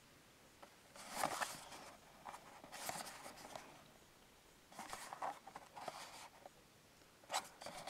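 Small cardboard blind box being handled and turned over in the hands: a few brief, faint scuffs and rustles of fingers and nails against the card.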